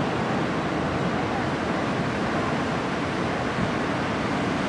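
Shore-break surf: a steady wash of breaking waves and churning foam.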